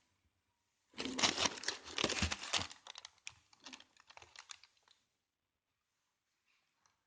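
Paper wrapping crinkling and rustling as it is handled: a dense crackle for about two seconds, then scattered crinkles that die away about five seconds in.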